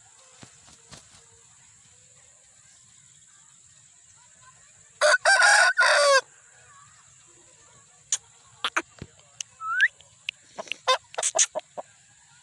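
Aseel rooster crowing once, a short crow of about a second that starts about five seconds in. Over the last four seconds come a scatter of short sharp calls and clicks, with one rising chirp.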